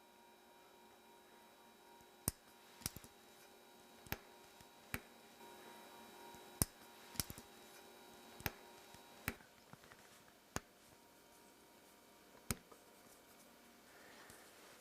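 Small sharp clicks of a watchmaker's metal tools on watch parts during bench assembly, about a dozen at irregular intervals, over a faint steady hum.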